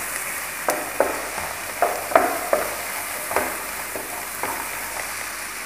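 Chicken, bell peppers and onions sizzling in a frying pan with a steady hiss while a wooden spatula stirs them, scraping and knocking against the pan at irregular intervals.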